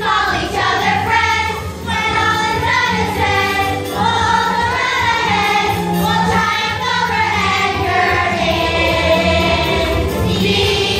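Children's chorus singing a musical-theatre number in unison, with instrumental accompaniment underneath.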